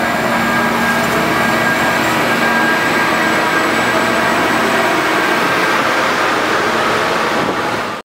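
Colas Rail Plasser & Theurer on-track maintenance machines, including a USP 5000 ballast regulator, passing close by through the station. Their diesel engines and wheels on the rails make a loud, steady noise with a faint high whine, and it cuts off abruptly at the very end.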